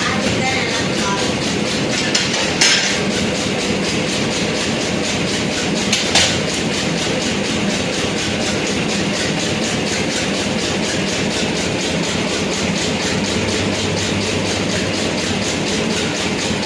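A machine running steadily with a fast, even rattle, with a few sharp metal knocks about two and a half seconds in and again around six seconds in.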